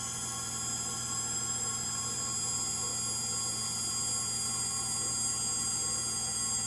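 Frigidaire Gallery GLTF1670AS1 front-load washer in its final spin: a steady high whine of several tones over a low hum, from motor bearings that have gone bad.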